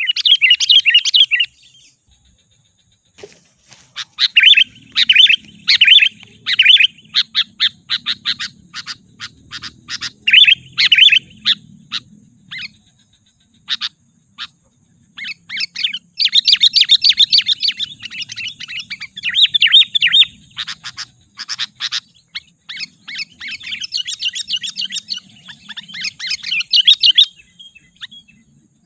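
Sooty-headed bulbul singing: bursts of quick chirped phrases repeated with short pauses, with a longer pause of about two seconds soon after the start.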